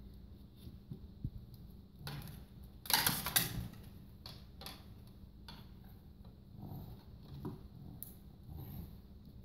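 Light knocks and rattles from a toddler handling a tennis ball can and tennis balls, with a louder rattling clatter about three seconds in.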